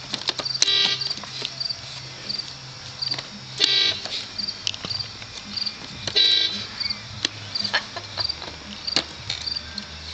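A Jeep's horn sounding in three short honks a few seconds apart, over crickets chirping in a steady rhythm.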